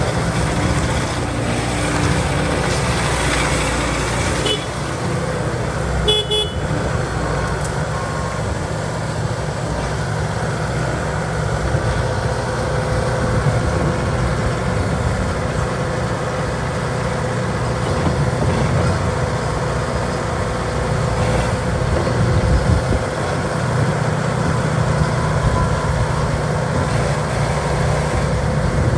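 2013 Bobcat S570 wheeled skid steer's diesel engine running steadily, its level swelling slightly now and then.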